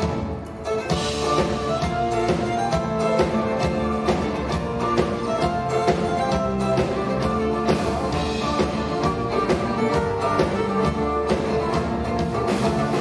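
Live instrumental band music: violin over acoustic guitar, cello, electric bass and drum kit, with a steady beat.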